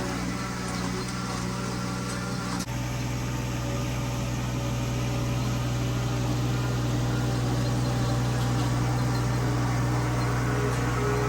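Vehicle engine running steadily. Its note changes abruptly about two and a half seconds in, then holds steady.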